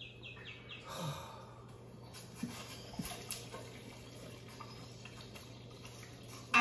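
Quiet outdoor ambience: a few quick bird chirps at the start, then faint soft clicks and knocks over a low steady hum.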